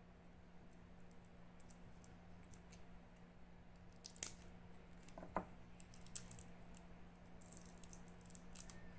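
Faint clicks and taps from a plastic syringe being handled and its plunger worked, over a low steady hum. The sharpest click comes about four seconds in, and a run of small clicks comes near the end.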